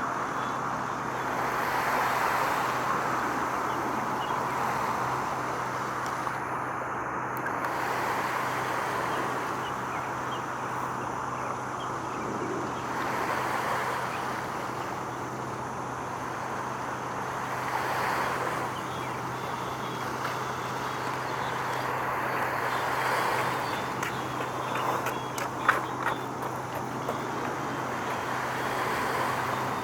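Outdoor road traffic noise: a steady wash of passing vehicles that swells and fades every few seconds, over a constant low hum. A few sharp clicks come near the end.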